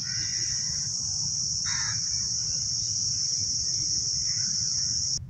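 Insects in the park trees keeping up a steady, high-pitched drone over a low rumble. The drone cuts off suddenly near the end.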